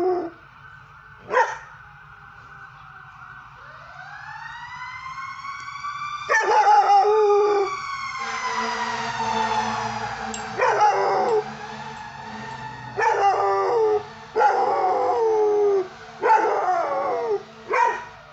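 Belgian Malinois puppy howling in a series of loud, wavering howls, answering an emergency-vehicle siren whose wail rises about four seconds in and then slowly falls in pitch.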